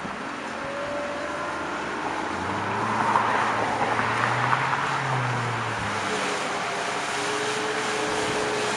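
Outboard motor of a rigid inflatable boat running at speed as the boat comes close, over the hiss of its wake. The engine note swells about a third of the way in and eases off after about six seconds.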